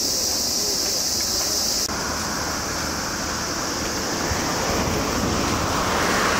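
Insects chirring in a steady, high-pitched band, breaking off abruptly about two seconds in; after that a steady rushing noise that swells a little near the end.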